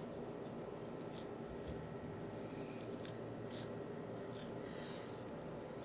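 Knife faintly slicing and scraping through a boneless beef chuck roast, separating the muscles from the fat and membranes: a handful of short scrapes over steady, faint room noise.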